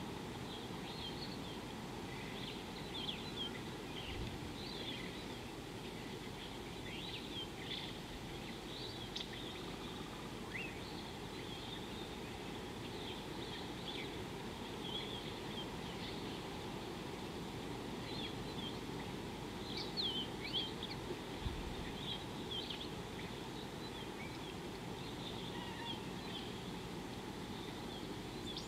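Wild birds chirping, with many short high calls scattered through, over a steady low background noise.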